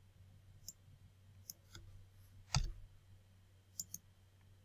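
Computer mouse buttons clicking a handful of times, short sharp clicks with the loudest a little past halfway and a quick double click near the end, over a low steady hum.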